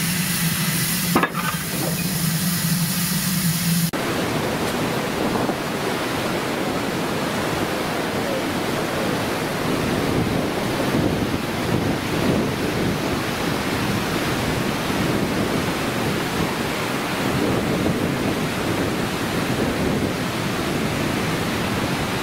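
A steam locomotive hissing over a steady low hum, with one sharp click about a second in; about four seconds in it cuts to a steady, even rushing noise.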